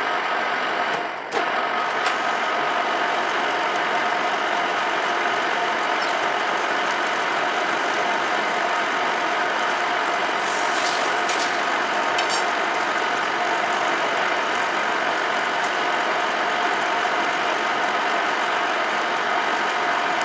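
Metal lathe running steadily while turning a stepped steel shaft held between chuck and tailstock centre: a continuous machine hum and whine over the hiss of the cut. The sound dips briefly about a second in, and a few light ticks come about halfway.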